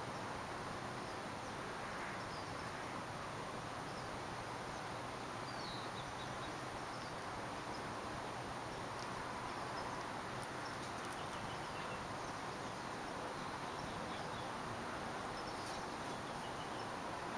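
Outdoor background: a steady, even hiss with faint, scattered high bird chirps.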